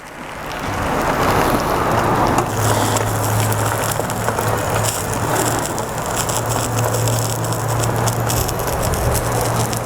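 Egg and toast frying in oil in a frying pan, sizzling and crackling steadily just after the egg is flipped, growing louder over the first second. A steady low hum runs underneath.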